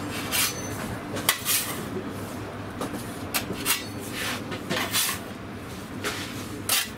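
Long-handled metal pizza peel scraping and knocking against a floured marble counter and the oven floor, about ten short scrapes and clacks, as dough discs are scooped up and slid into a wood-fired oven. A steady low hum runs underneath.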